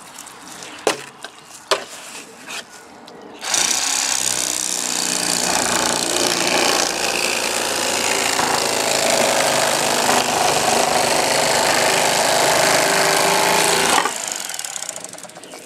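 Electric fillet knife running with a steady buzz as its blades slice a walleye fillet off the skin; it starts about three and a half seconds in and cuts off shortly before the end. A few light knocks of handling on the cutting board come before it starts.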